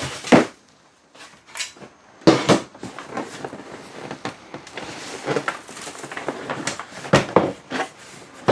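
Handling noises: a few sharp knocks and clunks with light rustling and scraping in between, as a cardboard box is moved aside and a plastic RC boat hull is set onto its stand.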